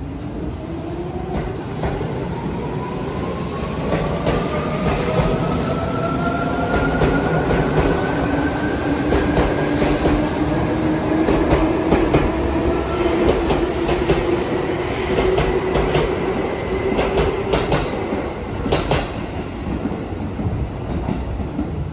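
Seibu 2000 series electric train pulling away from the platform: the motor whine rises in pitch as it gathers speed, then levels off, while the wheels clack over rail joints.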